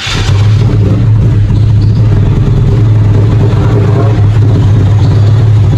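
1984 Holden VK Commodore's carburetted engine catching right at the start and then running steadily and loud, just after a long crank with the ignition coil plugged back in.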